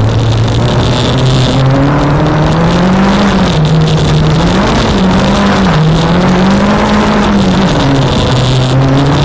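Renault Clio 1.8 16v's four-cylinder engine, heard from inside the stripped cabin, revving up and down repeatedly as the car is driven hard on loose dirt. The revs drop about three-quarters of the way through and hold steady, over a constant rush of tyre and gravel noise.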